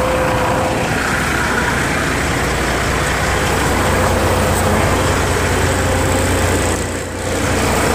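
Semi-truck diesel engine idling close by: a steady low rumble.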